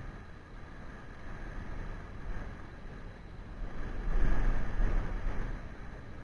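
Wind buffeting the microphone over open water, a steady low rumble that swells louder about four seconds in.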